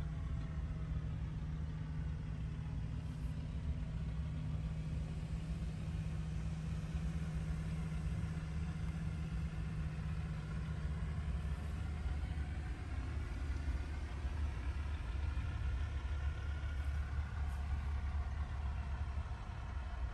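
Heavy diesel truck engine idling, heard from inside a truck cab: a steady low rumble whose deepest tone drops lower about a third of the way through.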